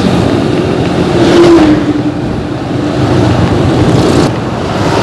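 Luragung intercity bus's diesel engine with a 'ngorok' (snoring) exhaust, running loud and rough. The engine note rises to a peak about one and a half seconds in and dips briefly near the end.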